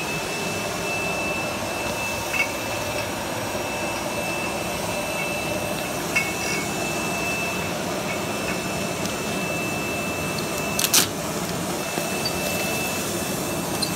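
Wine bottle labeling machine running: conveyor and drive motors with a steady high whine over a steady mechanical rush. A few light clicks break in, and a sharper click comes late on, where the whine drops out for about a second.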